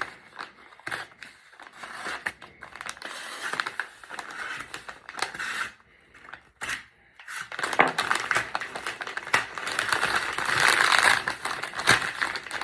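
Wrapping paper being crinkled, torn and pulled off a wooden axe handle, in irregular crackling rustles that grow louder and more continuous in the second half.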